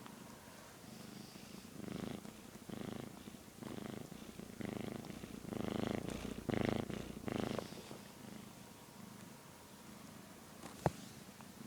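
Domestic cat purring while dozing, a low rumble that swells and eases with each breath, under a second per cycle, loudest in the middle and quieter after about eight seconds. A single sharp click near the end.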